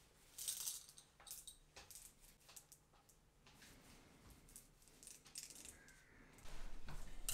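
Loose steel bearing balls clicking against each other in a hand, in scattered light clicks, turning into a denser rattle in the last second or so.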